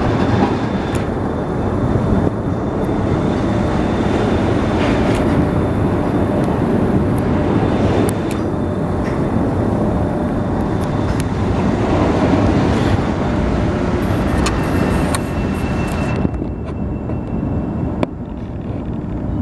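Freight train cars rolling past with a loud, steady rumble and a faint high wheel squeal. The hissing upper part of the noise drops away about sixteen seconds in.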